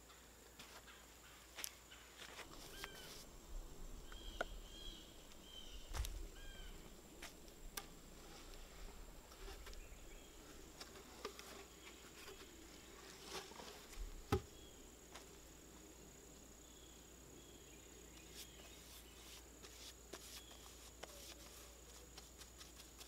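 Faint woodland ambience: a steady high insect drone with a few short bird chirps. Scattered knocks and thumps come from tools and timber being handled, the sharpest about six and fourteen seconds in.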